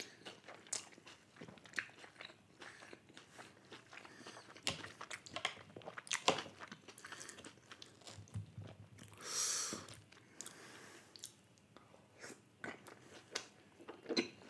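A person chewing and biting into chilli chicken momos, with many short wet clicks and smacks of the mouth. A brief hiss comes a little after two-thirds through.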